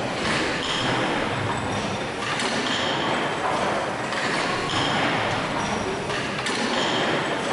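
Hathorn Davey horizontal steam pumping engine running slowly: a steady mechanical clatter of motion and valve gear, with a pattern that repeats about every two seconds.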